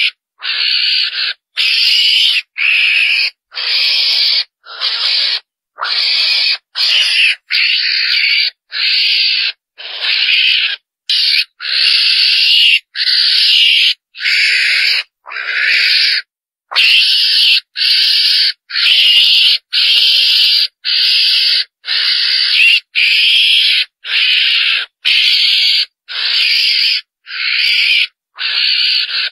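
Rapid, repeated high-pitched calls of a chồn đèn (small Asian mongoose), about one call a second, each well under a second long. This is the lure call used by hunters to draw mongooses in.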